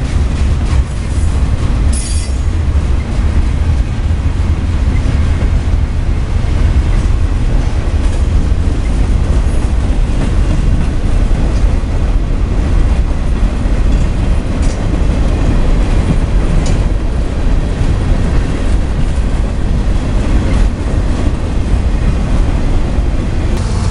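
A mixed freight train's cars rolling past at speed: steel wheels on the rails in a loud, steady rumble, with a few sharp knocks, one about two seconds in and more later.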